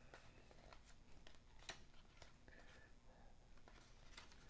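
Faint clicks and soft rustling of cardboard trading cards being thumbed through by hand, a card slid off the stack every second or so.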